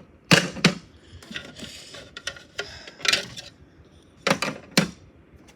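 Hard plastic clacks and knocks from a toy washing machine and the toy food in it, several sharp hits, some in quick pairs.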